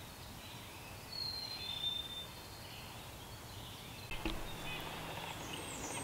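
Quiet forest ambience with two thin, high whistled bird notes about a second in. About four seconds in comes a low bump, followed by rustling.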